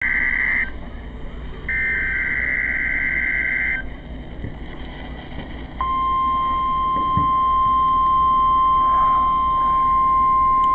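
NOAA Weather Radio receiver playing a required weekly test, with static under it. First come two bursts of rapidly warbling two-pitch data tones, the SAME digital alert header. About six seconds in, the steady single-pitch warning alarm tone begins and holds.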